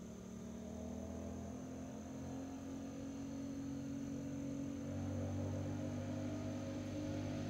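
Honda Rebel CMX1100's parallel-twin engine running through a Coffman Thunder aftermarket exhaust as the motorcycle approaches on the road: faint at first and growing steadily louder, with a deeper exhaust note coming in about two-thirds of the way through.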